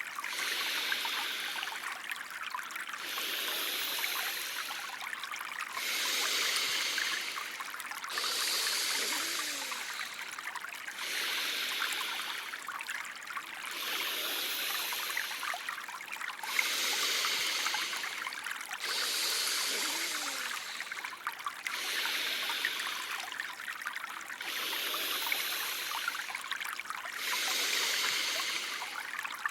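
Steady running-water background, like a trickling stream, with a hissing breath sound swelling and fading in a regular rhythm every two and a half to three seconds, pacing slow inhales and exhales.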